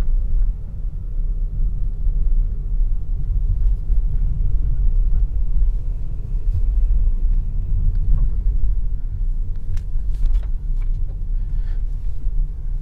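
Steady low rumble of a car driving slowly, engine and tyre noise heard from inside the cabin, with a few faint clicks in the second half.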